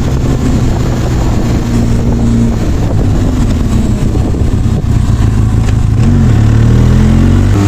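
Motorcycle engine running under way, a steady drone that rises in pitch about six seconds in as it speeds up.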